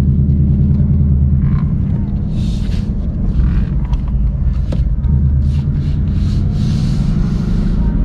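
Ford Mustang S650 GT's 5.0 V8 running while driving, a low engine drone heard from inside the cabin. The drone is steady for the first second and a half, then wavers, with short bursts of hiss above it.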